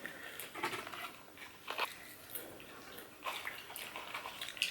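Chewing of fast food close to the microphone: faint, wet mouth clicks and small crunches at irregular intervals.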